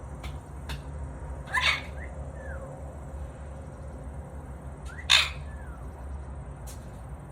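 Pet bird giving two short, harsh squawks, about a second and a half in and again about five seconds in, with soft short chirps beside them and a few faint clicks.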